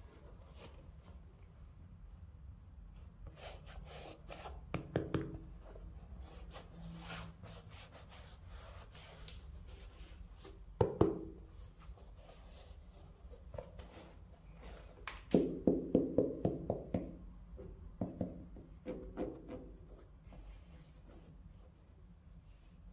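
Hands handling a sneaker box and shoes, rubbing and rustling with scattered knocks. There is one sharp knock about halfway through and a quick run of taps a few seconds later.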